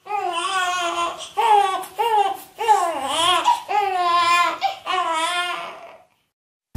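Infant crying hard: a run of about six wails with wavering, falling pitch, stopping about six seconds in.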